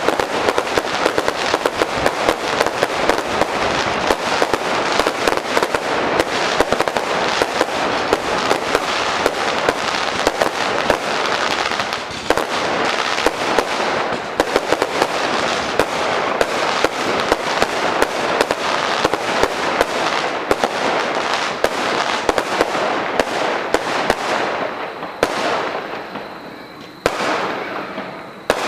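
Fireworks display: a rapid, dense barrage of bangs and crackles, thinning out near the end into a few separate bursts that die away.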